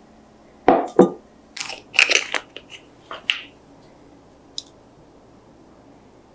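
Two sharp knocks about a second in as a glass measuring jug is set down on a wooden board. Then crinkly rustling and a few small clicks from handling a plastic tube of condensed milk, with one last short click near the middle.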